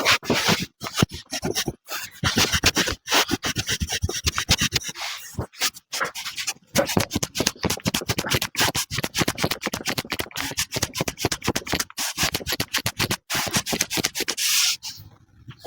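Rapid rubbing or scraping strokes, several a second, with a few brief dropouts.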